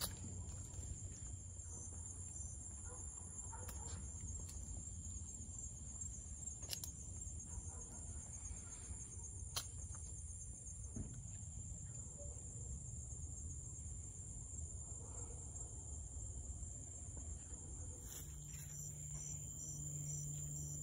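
Night insects, crickets, chirring in a steady high-pitched trill over a low rumble, with a few faint clicks. A low steady hum comes in near the end.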